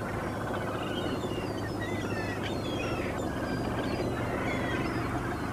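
A flock of gulls calling, many short cries overlapping, over a steady low hum.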